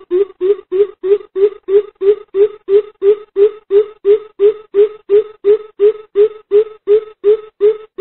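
Greater coucal calling: a long, even series of low "boop" notes, about three a second, its call to the flock.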